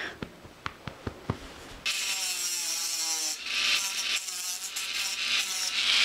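A few light handling knocks, then, about two seconds in, steady scratchy rubbing and scraping of a small paper-and-glue craft model being worked by hand. The rubbing swells louder a couple of times.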